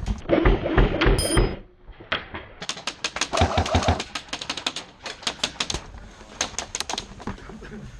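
Airsoft guns firing: runs of sharp, rapid clicks over several seconds. A loud scuffling noise comes before them, in the first second and a half.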